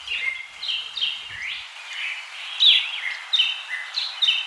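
Birds chirping: many short, high notes, some stepping or gliding down, repeating in quick succession over a steady hiss.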